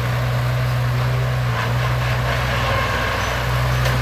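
Heavy diesel engine of a truck or construction machine running steadily, a low even drone.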